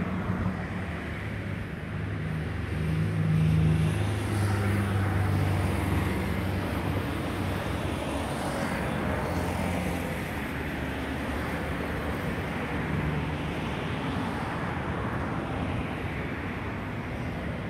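Steady outdoor engine and traffic noise, a low hum that swells around three to five seconds in and then evens out.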